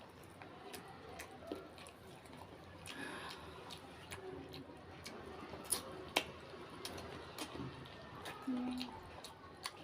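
A person eating close to the microphone: soft chewing and wet mouth sounds broken by scattered sharp clicks and crunches, the two loudest a little over halfway through.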